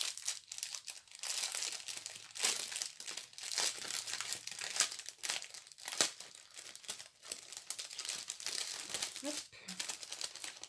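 Small plastic bags of diamond painting drills crinkling and rustling as they are handled and sorted, with irregular crackles and small clicks.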